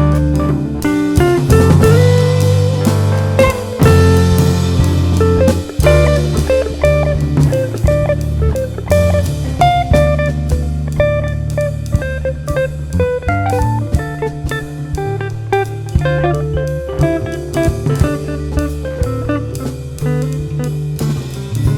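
Instrumental music with guitar, bass and a drum kit keeping a steady beat.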